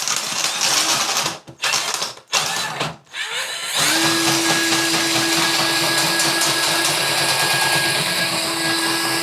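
Cordless Ryobi drain auger working a clogged shower drain: a few short rattling, noisy bursts, then the motor spins up about three and a half seconds in and runs steadily with a high whine as the cable turns in the drain.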